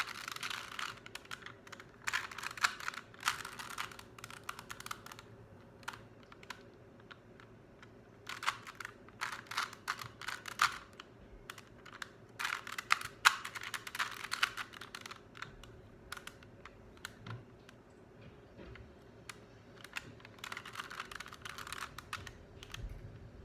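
Plastic Rubik's Cube layers being turned: quick runs of rattling clicks as sequences of moves are executed, in about five bursts with pauses between them.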